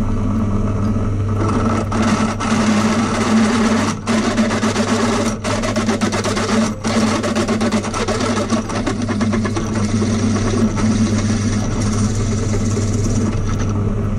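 Benchtop drill press running, its twist bit cutting through a steel M12 nut held in a drill-press vise to enlarge the hole into a clearance hole. A steady motor hum, with scraping cutting noise from about a second and a half in that breaks off briefly a few times. The motor stops near the end.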